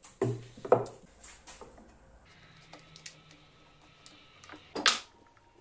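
Workshop handling noises: wooden bars knocked and set down on a plywood tabletop, two knocks in the first second, then light clicks and rubbing, and a sharper clack near the end as the bar is clamped in place.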